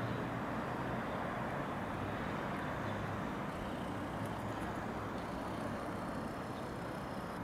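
Steady hum of distant city road traffic, an even rushing noise with no single vehicle standing out.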